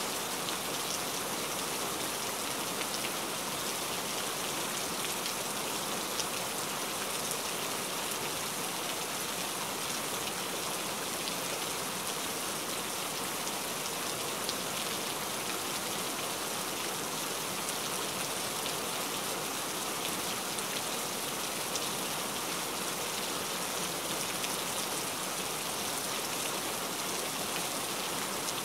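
Steady rain falling: an even, unbroken hiss with a few faint drop ticks.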